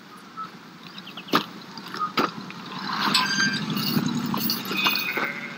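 Background ambience of scattered light clicks and short glassy clinks, with a soft low hum that swells in the second half.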